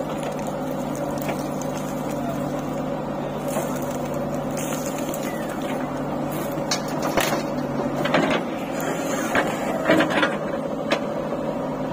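JCB 3DX backhoe loader's diesel engine running steadily under load as the backhoe works. From about halfway through, irregular cracking knocks and clatter of soil and stones in and around the bucket, as a load is swung over the trolley and the bucket goes back into the dig.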